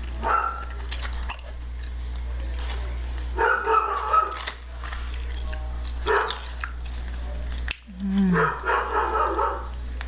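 A dog barking in several short bursts a few seconds apart, over a steady low hum.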